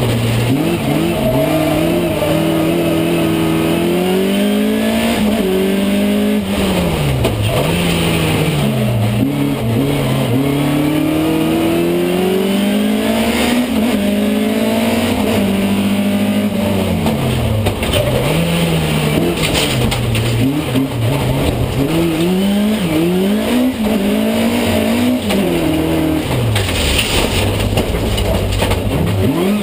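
Rallycross car's engine heard from inside the cabin under race conditions, its pitch climbing with the revs and then dropping sharply, over and over, as the driver accelerates, changes gear and lifts for corners. A steady rush of road and tyre noise runs underneath.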